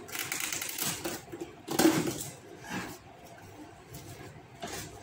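Kitchen items being handled: rustling and light clatter for about a second, then a sharp knock about two seconds in, a fainter knock a second later, and one more faint knock near the end.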